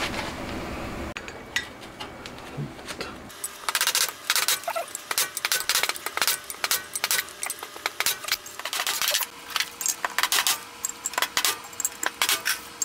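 Quick, light metallic hammer taps, several a second and irregular, driving press-fit valve seats and valve guides into a heated cylinder head. The fit is tight, so the parts go in under repeated tapping. The taps start about three seconds in, after some quieter handling noise.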